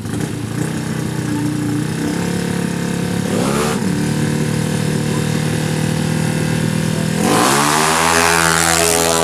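Tuned 200cc automatic scooter drag bike engine running at high revs, its pitch dipping and climbing back twice, once about a third of the way in and again near the end, where it gets louder.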